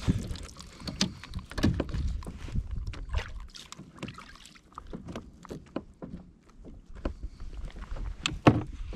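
Irregular knocks, taps and clicks of handling aboard a kayak as a hooked cod is brought in, with a louder click near the end. There is a low rumble during the first few seconds.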